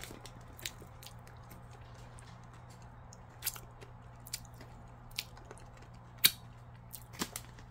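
Faint mouth sounds of someone eating a hard lollipop, with about six sharp, scattered clicks, over a steady low hum.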